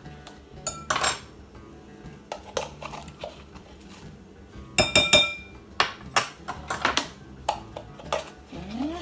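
Metal measuring spoon clinking and tapping against the poppy seed container and the mixing bowl as poppy seeds are measured out and tipped in: a string of sharp clinks, the loudest cluster about halfway through with a short metallic ring.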